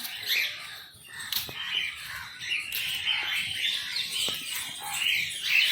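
Many birds calling at once, short high calls overlapping in a busy chorus.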